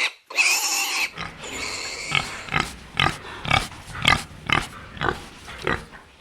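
Animal calls: a brief high-pitched call in the first second, then a run of short, evenly repeated calls, about two to three a second, fading near the end.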